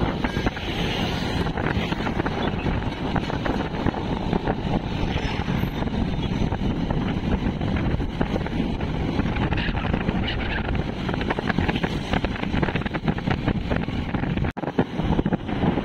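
Wind rushing over the microphone of a moving motorcycle, with engine and road noise underneath. The sound cuts out for an instant near the end.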